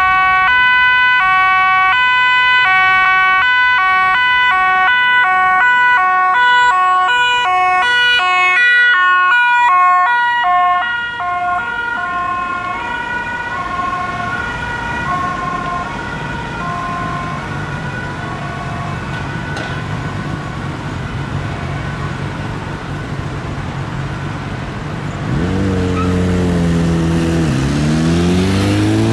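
Two-tone emergency vehicle siren alternating between a high and a low note, each held about half a second, loud at first, then fading away after about eleven seconds. Near the end a vehicle engine revs up, rising in pitch, dipping once and climbing again.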